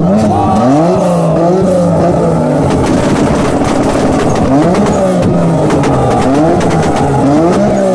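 A Nissan Skyline's engine revved hard again and again on a two-step launch-control limiter, its pitch sweeping up and down. Rapid pops and crackles come from the exhaust, thickest in the middle.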